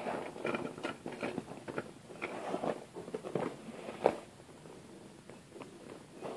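Handling noise from small plastic toy figurines being moved about by hand: irregular rustling and light clicks, with one sharper click about four seconds in, then quieter.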